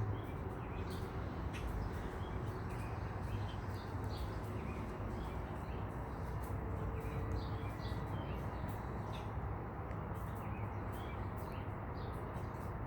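Small birds chirping now and then, short high chirps scattered throughout, over a steady low outdoor background noise.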